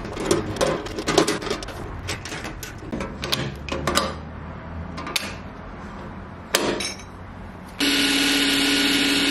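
Clicks and taps of metal hardware being handled and fitted against diamond-plate aluminium, with one sharp knock. In the last second and a half a Ryobi cordless driver runs steadily, driving a fastener into a strut bracket.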